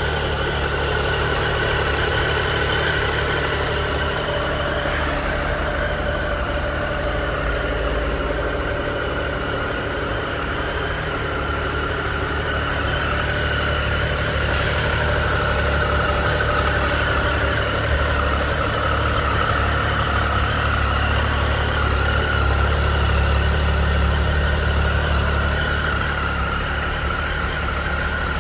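Triumph Tiger 1050 Sport's three-cylinder engine idling steadily, with no revving.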